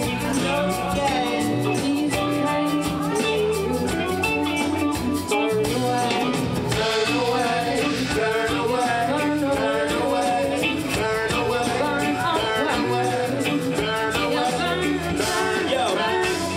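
Live reggae and soul band playing: singing into microphones over electric guitar and drum kit, heard through the PA.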